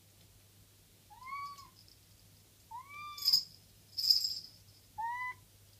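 Domestic cat meowing three times, short calls that rise and fall in pitch. Two sharp metallic clicks come between the second and third meows.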